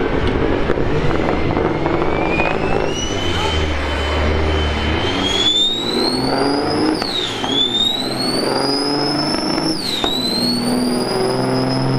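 Loaded diesel semi truck accelerating hard in a drag race. A high turbo whine and the engine note climb steadily in pitch and dip sharply at gear shifts about seven and ten seconds in, then hold high near the end.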